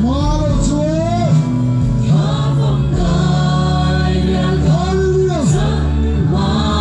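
Live Christian worship music played through a PA: a singer backed by a band of guitar, keyboard and drums, with several voices singing together.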